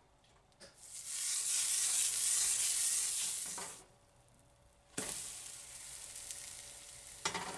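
Pancake batter sizzling in melted butter on hot cast iron, in two stretches. The first, in a small BB-8-shaped cast iron pan, starts about a second in and cuts off just before four seconds. The second, on a cast iron griddle, starts suddenly at about five seconds and slowly fades.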